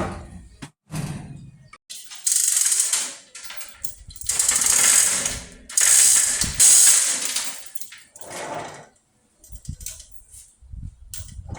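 Tools working on the tractor's engine: three long spells of rattling mechanical noise, each about a second or more, with short metallic clicks and knocks around them.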